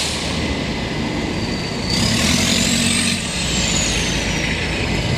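City street traffic: vehicle engines and road noise. From about two seconds in, a high whine rises and then slowly falls back.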